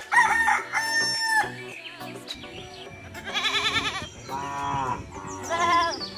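A rooster crowing in the first second and a half, followed by several shorter animal calls with a wavering pitch, over light background music.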